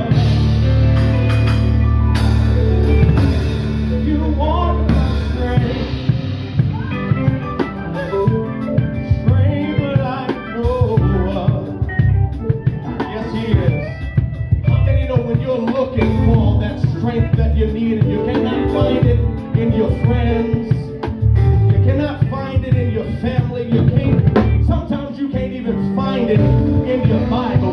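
A live band playing: a drum kit struck with sticks keeps a steady beat under held low notes and electric guitar lines.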